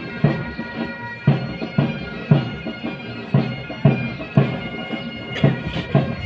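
Regimental pipe band playing a march: bagpipes sounding steady held notes over a drum beat of about two strokes a second.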